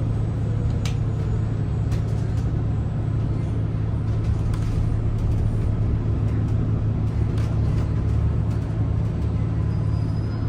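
Steady low drone of a Gillig hybrid transit bus's drivetrain, a Cummins B6.7 diesel with a BAE hybrid system, heard inside the cabin.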